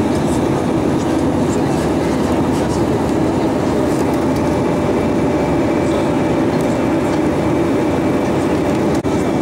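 Steady cabin noise of an Airbus A320-232 in flight: the constant rush of airflow and its IAE V2500 engines, with a faint steady whine over it. There is a brief drop in level just before the end.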